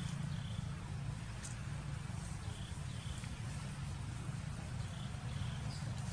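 Steady low rumble of outdoor background noise. Over it, a faint short high chirp comes twice in quick succession, about every two and a half seconds.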